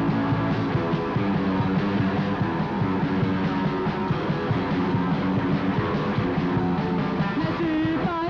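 Punk rock band playing live: electric guitars, bass guitar and drums in an instrumental stretch with no singing.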